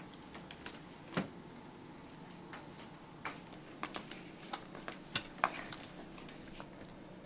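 Faint, irregular clicks and taps of light footsteps in heeled sandals and small objects being handled, with one louder knock about a second in.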